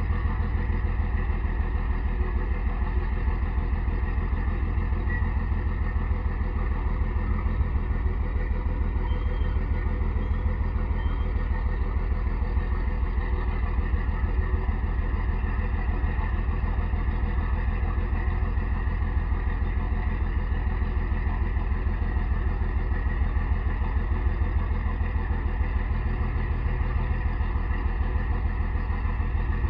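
Sterling Acterra crane truck's diesel engine running steadily at idle, a dense, even low pulsing, while its knuckle-boom crane is being worked.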